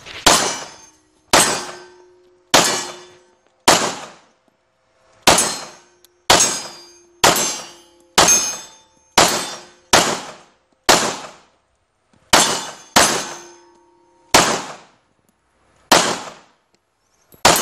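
Semi-automatic pistol fired sixteen times in a steady string, about one shot a second with a few longer pauses, each report trailing off in a short echo.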